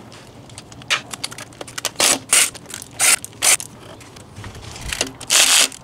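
Short scraping, clattering bursts from a Permobil C300 power wheelchair's drive wheel being taken off its hub, about five of them in the first three and a half seconds and a longer scrape near the end.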